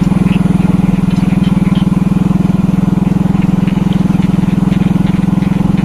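Small motorcycle engine running steadily at an even cruising speed, its exhaust pulses a constant low drone.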